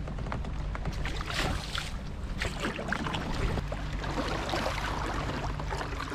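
Kayak paddle strokes: water splashing and dripping off the paddle blades in an irregular patter, over a low steady rumble.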